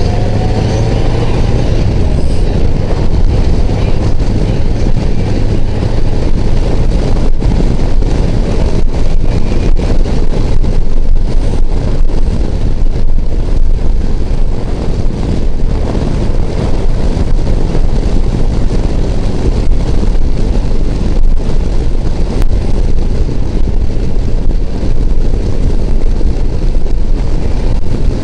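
Motorcycle riding at steady highway speed: wind rushing and buffeting on the rider's microphone over the engine's running drone.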